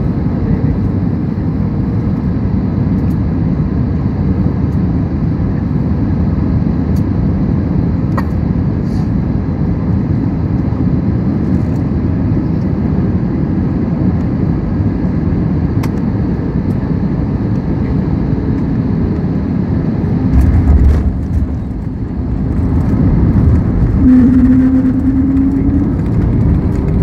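Cabin noise of an Airbus A320-family jet landing: a steady roar of engines and rushing air. About twenty seconds in there is a low thump as the wheels touch down. A few seconds later the engines spool up with a slightly rising hum for reverse thrust while the spoilers stand up on the wing.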